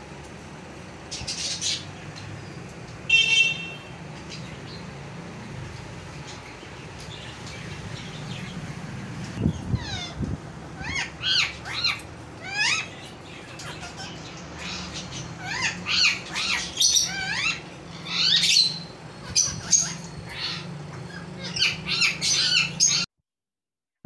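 Parrot calling: a short squawk about three seconds in, then, after a low thump, a quick run of chirps and whistles sweeping up and down in pitch that cuts off suddenly about a second before the end.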